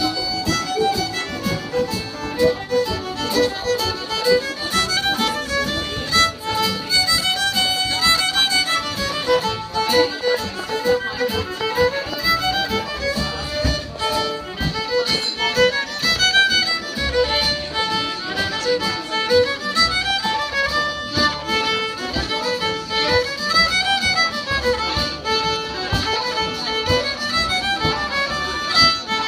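Acoustic folk session: fiddle playing a tune in quick running notes, with bodhrán and bowed cello accompanying and a little background chatter.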